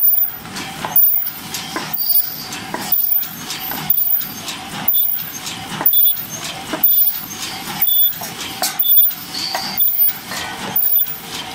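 Open-cam paper cup forming machine running at full production, about 70 cups a minute: a rhythmic mechanical clatter that repeats about once a second.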